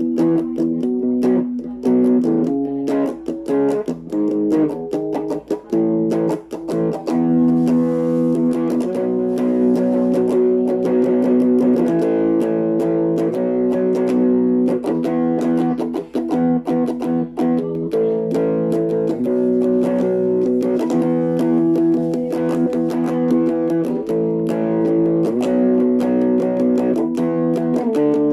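Thomson Stratocaster electric guitar played through a Laney amplifier, strumming chords that ring on and change every second or two.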